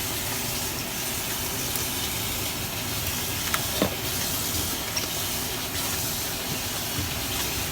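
Steady, even hiss with a few faint light clicks about halfway through.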